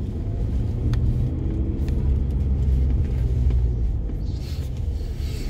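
Steady low rumble of a car's engine and tyres, heard from inside the cabin while driving along a city street.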